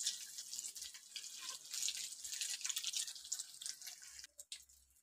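Samosas deep-frying in hot oil in a kadhai: the crackling sizzle of bubbling oil, which cuts off abruptly about four seconds in, leaving only a few faint clicks.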